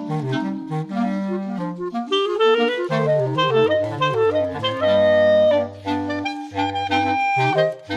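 A quartet of Ayson clarinets playing together in parts: several clarinet voices moving in chords over a sustained low line, with a loud held chord about five seconds in and brief breaks between phrases near the end.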